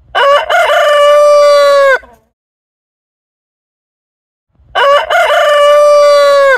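Rooster crowing twice: each crow opens with a few short broken notes and ends in one long held note, the second crow starting about two and a half seconds after the first ends.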